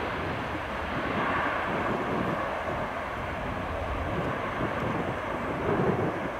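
Boeing 737-700's twin CFM56-7B jet engines running at high power as the airliner rolls away down the runway: a steady, dense jet noise that eases slightly near the end.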